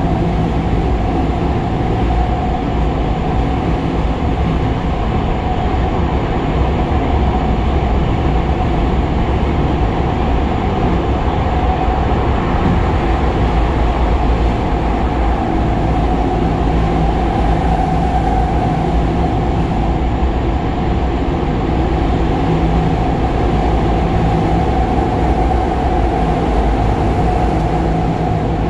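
Kobe Municipal Subway 6000 series train running at speed through a tunnel, heard from inside the car: a steady, loud rumble of wheels on rail with a steady whine held at one pitch.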